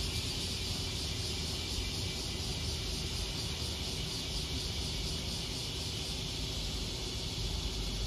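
Cicadas in a dense chorus, a steady high-pitched buzz with no breaks, over a low rumble.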